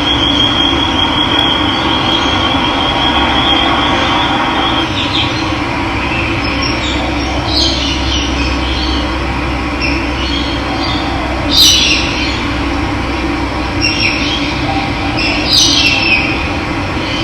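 Steady rush of running water, with birds chirping over it in short high calls, the loudest twice in the second half. A high, thin trill holds for the first few seconds.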